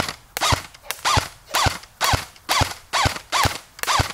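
Cheap electric airsoft rifle firing single shots in a steady string, about two a second. Each shot is a sharp crack with a short rising-and-falling whine from the motor and gearbox, and the whole gun sounds terrible.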